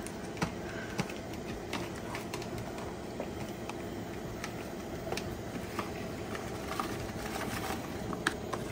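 Cardboard box being handled and opened, a few light clicks and rustles spread through, over a steady background hum.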